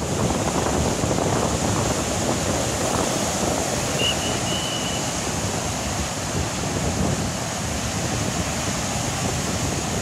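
Rough sea surf: waves breaking offshore and foam washing up the sand in a continuous loud rush, with wind on the microphone.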